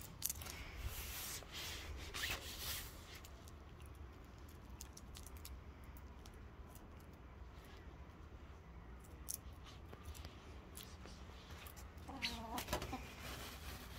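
Hens pecking and scratching at popcorn on dry dirt and grass, with short rustling and tapping sounds in the first few seconds, then a brief hen call about twelve seconds in.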